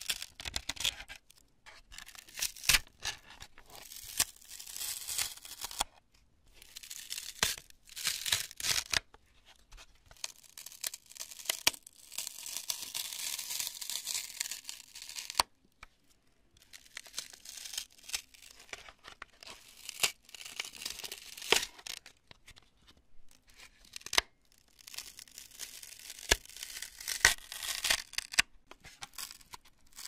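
Cured expanding construction foam being squeezed and torn apart by hand: crunchy, crackling tearing in bursts of a second or a few seconds, with short pauses and sharp crackles between.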